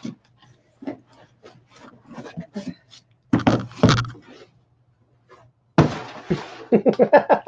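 Cardboard boxes being handled and unpacked: scattered taps and scrapes, a heavy thump about three and a half seconds in, then a rough rustle of cardboard and packing paper toward the end.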